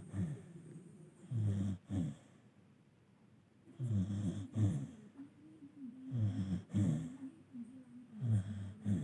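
A sleeping dog snoring, a low snore on each breath about every two seconds.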